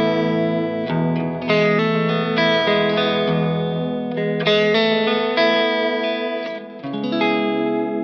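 Electric guitar, a Fender Stratocaster, played through the Native Audio Pretty Bird Woman chorus/vibrato pedal into a Vox AC30 amp: chords strummed and left to ring with a wavering modulation, struck anew about every second.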